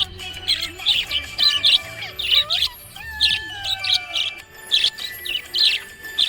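Budgerigar chirping: a quick run of short, bright chirps, several a second, mixed with a few sliding whistles, over music in the background.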